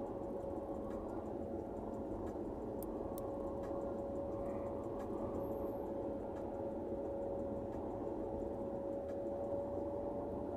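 Car cabin noise while driving: a steady low road and engine rumble with a constant whine, and a few faint scattered ticks.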